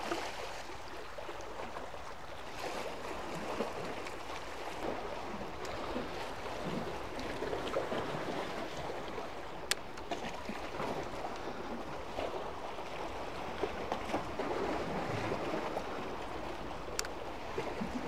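Small sea waves washing and lapping against concrete tetrapods, a steady wash of water that swells and eases. Two brief sharp clicks, one about halfway through and one near the end.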